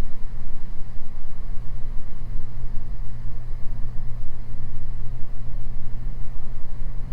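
Beechcraft G58 Baron's twin piston engines and propellers droning steadily in the cockpit on final approach.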